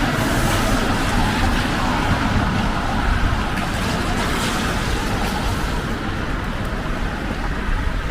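Steady city traffic: cars passing on a rain-wet road, with tyre hiss.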